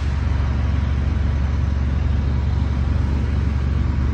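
Heavy utility trucks running steadily: a deep, constant engine rumble with an even hiss over it.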